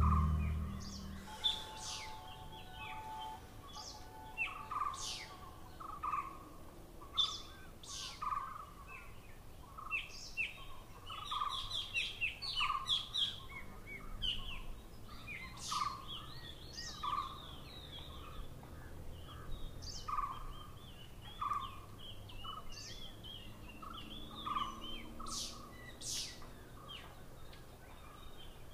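Birds calling in forest: a low note repeated about once a second, with assorted short chirps and whistles above it. Music fades out in the first second or so.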